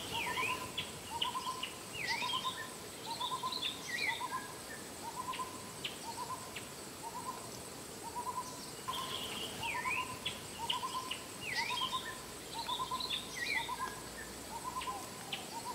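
An owl calling a steady series of short hoots, a little over one a second, while other birds chirp and give quick dipping whistles over it in two spells.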